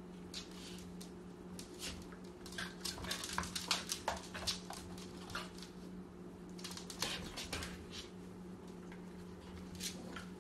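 Sharp clicks and taps in quick clusters as a corgi puppy plays with a small gourd on a wooden floor, pushing it across the boards. A steady low hum runs underneath.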